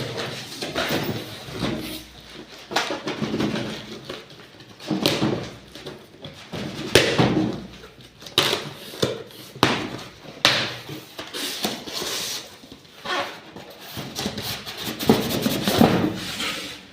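Irregular knocks, clunks and rustling from objects being handled.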